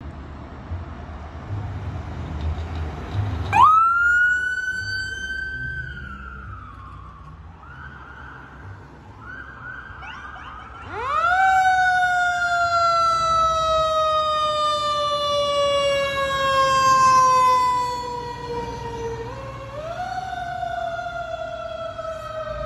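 Fire engine siren winding up quickly to a high wail and then slowly falling in pitch, three times, over a low engine rumble.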